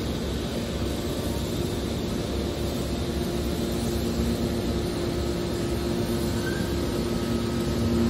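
Hydraulic scrap metal baler running: a steady mechanical hum and whine from its hydraulic power unit, with two low tones held throughout.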